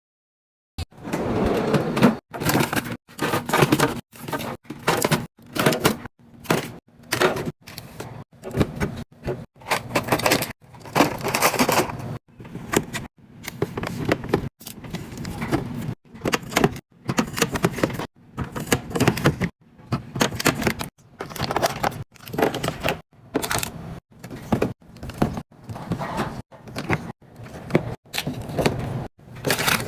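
Quick-cut restocking sounds: items and packaging being handled and set down, in short noisy snippets that change abruptly every second or so, after about a second of silence.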